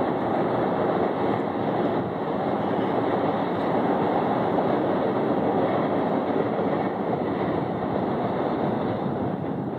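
Freight train rolling past, a steady rumble of cars on the rails that grows a little quieter near the end.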